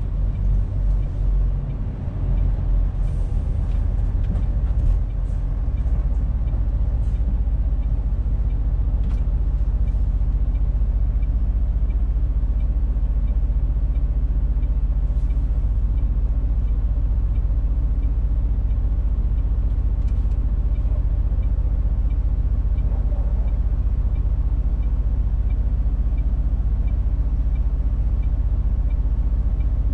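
MAN TGX 470 truck's straight-six diesel engine running at low speed in town traffic, heard inside the cab as a steady low rumble, a little uneven in the first few seconds and then even.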